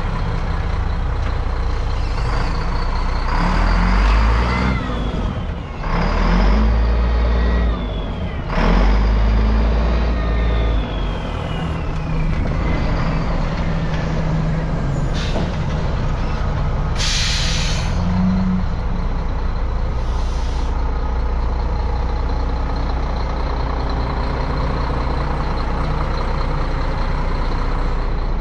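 Mack CL613 truck tractor's diesel engine revved three times, each rev followed by a whistle falling in pitch, then settling to a steady idle. Short bursts of air hiss come past the middle, the longest about seventeen seconds in.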